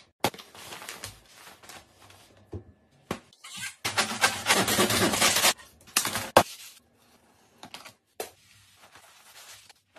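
A large kitchen knife chopping and sawing through an Acer laptop's lid: scattered clicks and scrapes, then a loud stretch of crunching and cracking in the middle that ends in a sharp snap, followed by lighter clicks of broken pieces.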